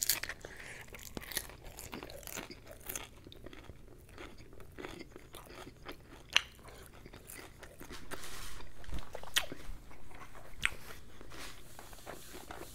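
Close-up mouth sounds of a person biting and chewing crispy battered chicken balls: wet smacks and crunches coming irregularly, a few sharper than the rest, with the chewing louder for a couple of seconds past the middle.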